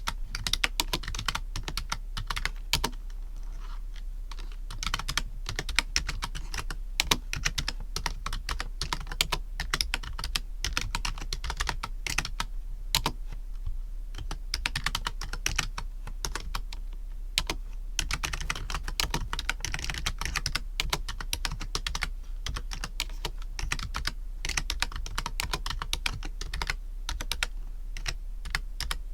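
Typing on a computer keyboard: a fast, irregular run of key clicks with no pauses longer than a moment, over a steady low hum.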